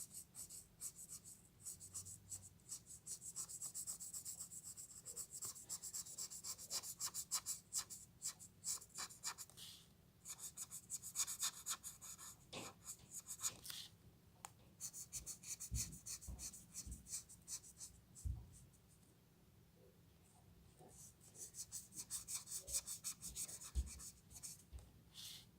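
Colouring marker scratching across paper in quick, repeated back-and-forth strokes as an area is filled in, with a few short breaks and one longer lull past the middle, and a few soft knocks.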